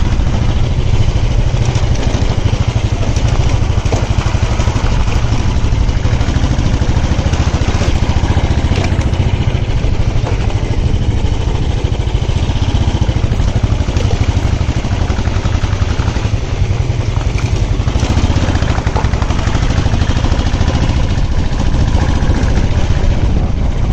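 Motorcycle engine running steadily on the move, with a heavy, unbroken low rumble.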